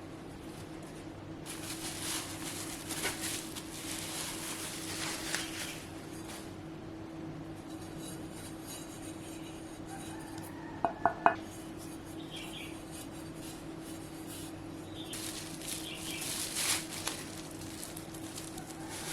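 Unboxing handling of a Kreo Slab video light and its packaging: rustling and scraping, with three quick ringing clinks of hard parts about 11 seconds in. A steady hum runs underneath.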